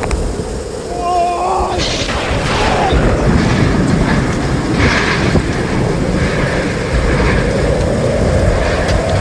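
Thunder rumbling heavily during a thunderstorm, a deep continuous rumble with no clear break. About a second in, a person's voice is heard briefly.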